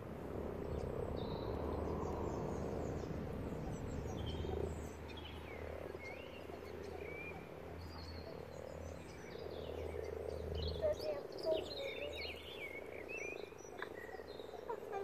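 A chorus of many common frogs (Rana temporaria) croaking together at spawning time, a steady overlapping mass of low croaks that is the males' mating call. Short higher chirps sound over it now and then.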